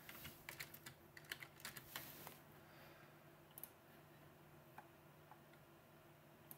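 Faint typing on a computer keyboard: a quick run of keystrokes for about two and a half seconds, then a few single clicks spaced out over the rest.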